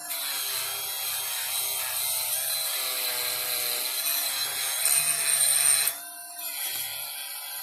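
Small rotary tool cleaning up a die-cast metal toy grille: a hissy grinding with a whine that wavers as it is pressed on, stopping suddenly about six seconds in.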